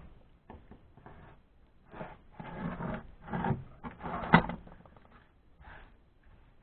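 Utility knife blade drawn through parchment paper along a steel square, a few short scraping strokes, then a sharp click about four seconds in and the paper rustling as it is handled.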